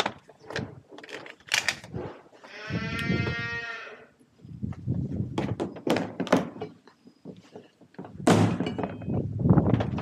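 A farm animal bleats once, a wavering call lasting about a second and a half, among scattered knocks and clatters of handling.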